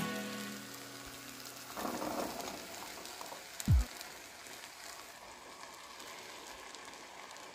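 Boiled chickpeas tipped from a bowl into a steel pressure cooker, pattering in briefly about two seconds in. A single dull low thump follows near four seconds.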